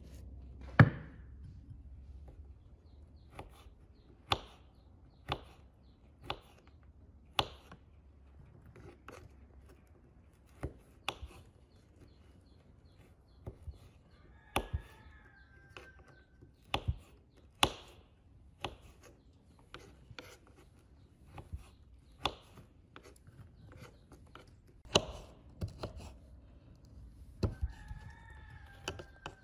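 Kitchen knife chopping food on a wooden cutting board: sharp, uneven knocks of the blade against the board, roughly one a second. A rooster crows faintly twice, once about halfway through and once near the end.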